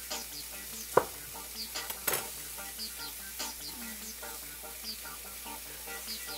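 Food sizzling in a frying pan as it is stirred and turned with a utensil. A sharp, ringing clink comes about a second in, and another knock just after two seconds.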